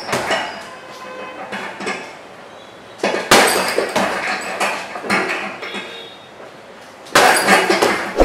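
Jab-and-teep combinations hitting a hanging heavy bag, twice: each is a sharp thud of gloved fist and foot followed by about a second of metallic jangling as the bag swings on its hanging chains.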